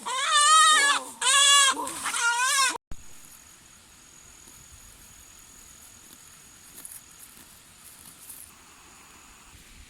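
A goat bleating twice in long, wavering calls, then a sudden cut about three seconds in to faint background hiss with a thin, high steady whine.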